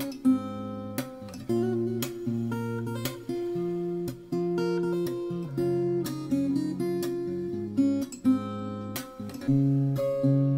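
Background music: an acoustic guitar playing plucked chords, each one struck and left to ring out and fade.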